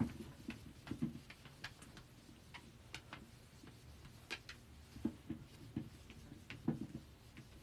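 Whiteboard on a stand being wiped clean by hand: scattered light knocks and rubbing against the board, about one a second at irregular intervals.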